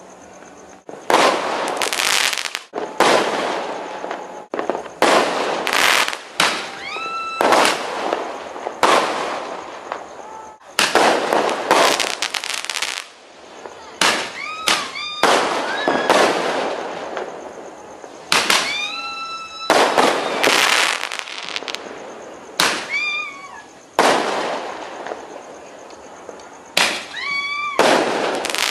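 New Year fireworks going off in a long, uneven run of loud bangs and crackling bursts, roughly one every second, some followed by short whistling tones.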